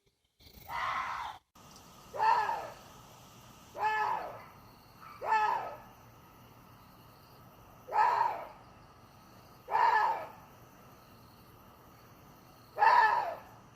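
Water deer calling: seven short calls, each about half a second and falling in pitch, spaced one to three seconds apart.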